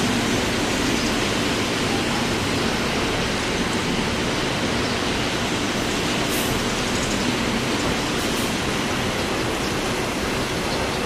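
Steady roar of heavy rain and strong wind, with the jet engines of a Boeing 787-10 on landing blended into it.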